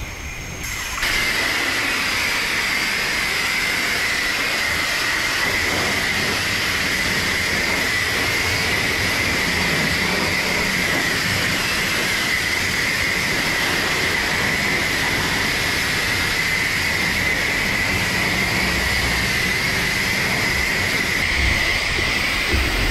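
Self-serve car wash high-pressure rinse wand spraying water onto a car's paint. It comes on about a second in and gives a steady hiss with a high whine running through it.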